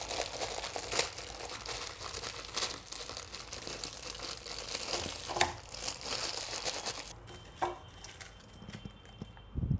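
Plastic instant-ramen wrapper crinkling and tearing as it is pulled open and peeled off the dry noodle block, with scattered sharp crackles; it quietens after about seven seconds, and a soft low thump comes near the end.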